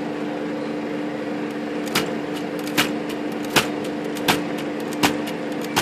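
Royal Futura 800 manual typewriter tabbing: six sharp clacks about three-quarters of a second apart as the carriage jumps and stops at the tab stops. The tab stops now catch after a bent part jammed under the tab rack was straightened. A steady low hum runs underneath.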